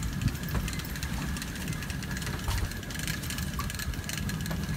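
An engine running steadily, a low even hum with a faint steady whine above it, and a few light clicks over the top.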